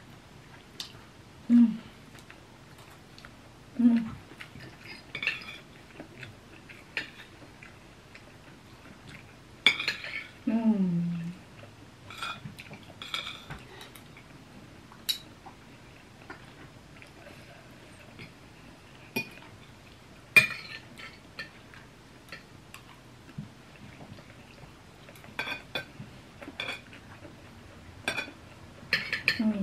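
Metal cutlery clinking and scraping on ceramic dinner plates as two people eat, in scattered irregular clicks. A few short low hums sound between bites, one falling in pitch about ten seconds in.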